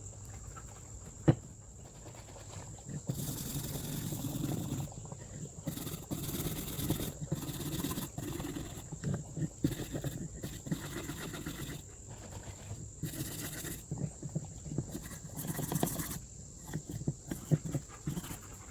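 Hand brushes scrubbing a pair of steel lineman's pliers, irregular rasping strokes that come in bursts, working off grime and old blue paint loosened by the electrolysis rust removal. A single sharp click about a second in.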